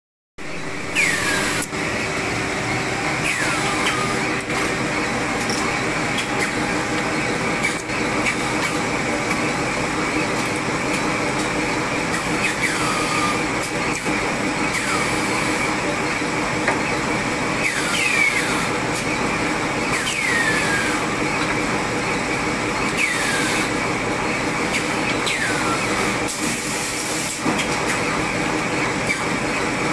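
High-speed paper napkin folding machine with its inline packaging machine running: a dense, steady mechanical clatter with a steady hum and light clicks, and several short whistles falling in pitch every few seconds.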